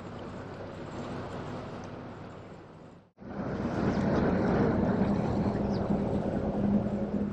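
Car ferry's engine droning steadily with a low hum over a rush of noise. The sound cuts off sharply about three seconds in and comes back louder.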